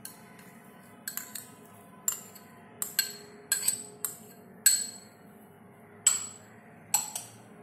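Metal spoon clinking against ceramic bowls as chopped capsicum is scraped out of a small bowl into a larger one: about a dozen sharp, separate clinks, each with a short ring.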